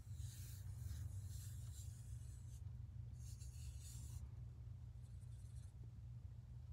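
Felt-tip marker tip scratching across paper as an outline is drawn, in three spells of strokes, the last one fainter and short, over a steady low hum.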